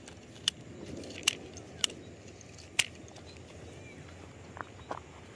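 A handful of sharp, irregular clicks from handling a baitcasting rod and reel: four crisp clicks in the first three seconds, then two softer ticks near the end, over faint outdoor background noise.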